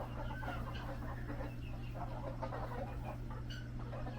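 Native chickens clucking, many short calls overlapping, over a steady low hum.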